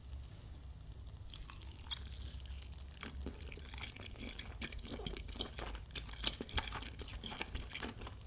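Close-up chewing and crunching of chicken, with many small wet clicks and crackles that get going about a second in.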